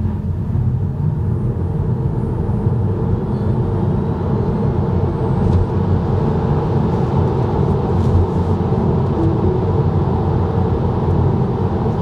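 In-cabin noise of a rear-wheel-drive Tesla Model 3 Standard Range Plus in a full-power launch from a roll up to about 105 km/h, then holding speed: a steady low rumble of road and tyre noise from studless winter tyres.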